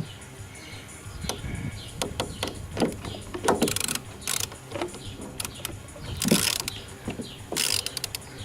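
Hand tools and metal parts being handled in car repair work: an irregular series of clicks and knocks, with three short rattling bursts.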